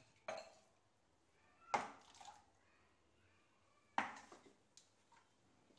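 A steel mixer-grinder jar knocking against a stainless steel bowl as it is emptied: a few sharp clinks, the loudest about a second and a half in and another about four seconds in.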